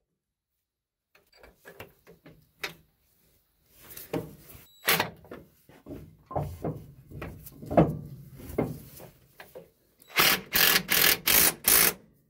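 Hand tools working on the metal fittings of an air-brake tractor protection valve: scattered clinks, knocks and scraping of a wrench on metal, then a quick run of about five short, loud rasping bursts near the end.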